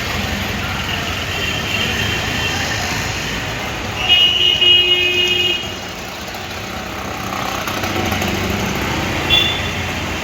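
Steady road traffic noise, with a vehicle horn honking for about a second and a half about four seconds in, and a short horn toot near the end.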